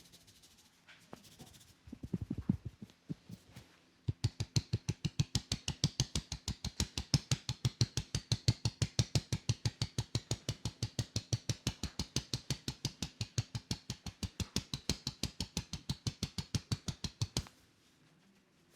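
Percussive hand massage: a barber's hands striking the client in quick, even tapping strokes, about seven slaps a second. A few slower thumps come first, the fast tapping starts about four seconds in, and it stops about a second before the end.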